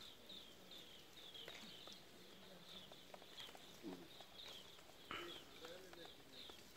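Faint, repeated high-pitched bird chirps, about two a second, each dipping slightly in pitch, with a few soft clicks.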